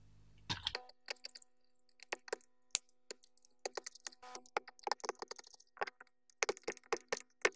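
Utility knife blade scraping crusty black spots off the painted metal case of a hand-cranked pencil sharpener: a run of short, irregular scratches and sharp clicks as the crust chips away, starting about half a second in.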